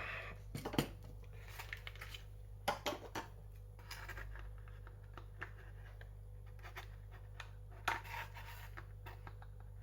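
Faint handling of plastic toy packaging: scattered small clicks and rustles as wire twist ties are untwisted to free an action figure's accessories from the tray.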